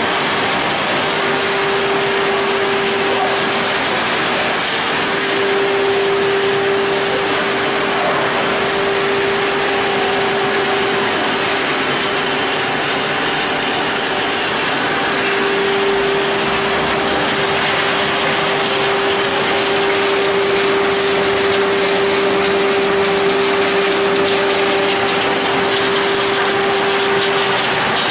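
EPS foam granulating line running: extruder, strand cooling trough and pelletizer cutter make a loud, steady machine noise, with a constant hum-like tone that drops out now and then.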